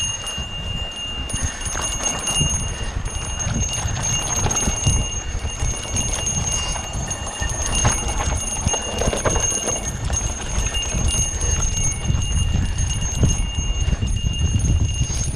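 Mountain bike riding over a dirt trail: a steady low rumble with a stream of quick knocks and rattles as the bike goes over bumps, and a thin high-pitched whine held throughout.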